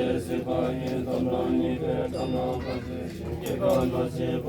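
Voices chanting in a steady, sing-song way, holding pitches with no pauses.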